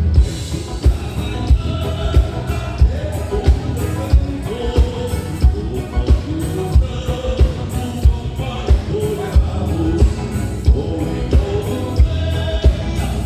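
Live gaúcho band music: singing over a steady bass-drum beat.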